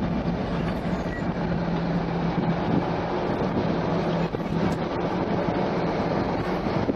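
Road traffic noise heard from inside a slowly moving car: a steady rumble and hiss, with a low hum that stops about two-thirds of the way through.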